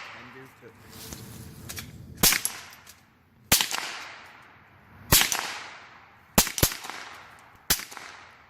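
Six gunshots fired at uneven spacing, roughly a second apart, with two in quick succession past the middle. Each sharp crack trails off in a fading echo.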